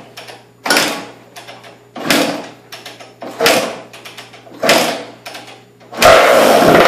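1990 Kawasaki KX125 two-stroke single being kick-started on its first start after a rebuild: four kicks about a second and a quarter apart, then about six seconds in the engine catches and runs loudly, revving.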